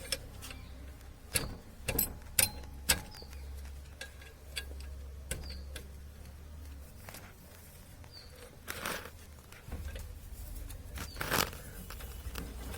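Scattered clicks and knocks of hand tools on metal as the clutch assembly is being unbolted, with two longer scrapes near the end and a low steady hum underneath.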